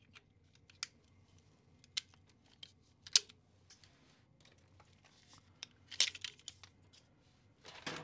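Hand-held all-in-one keystone termination tool squeezed onto a network keystone jack, pressing all eight conductors in at once: scattered sharp clicks and plastic rattles, the loudest snap about three seconds in, with further clusters of clicks around six seconds and near the end.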